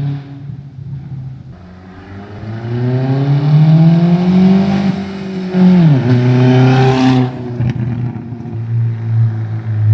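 Audi A4 1.8T turbocharged four-cylinder engine, with a freshly fitted used turbo, being revved: the pitch climbs steadily for about three seconds, drops sharply near six seconds in, blips once more, then settles back to a steady idle.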